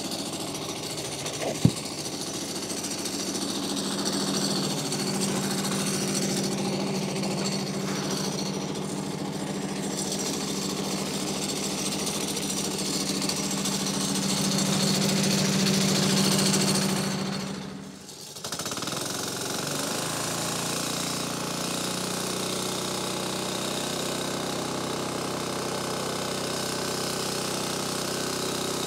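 Portable bandsaw sawmill running, its engine and band blade sawing through a log with a steady droning hum, with a sharp knock just before two seconds in. About eighteen seconds in the sound dips sharply, then the mill carries on at a steady, lower running note.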